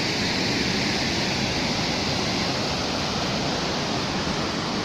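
Waterfall rushing steadily, a constant even roar of falling water heard close to the drop.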